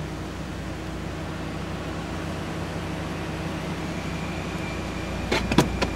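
A steady low mechanical hum, then a few sharp clicks and knocks about five and a half seconds in as the car's glove box latch is worked open.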